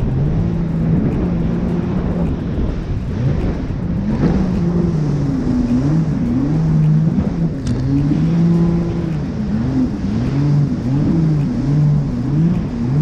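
Jet ski engine running at speed, its pitch rising and falling over and over, with wind and water spray rushing.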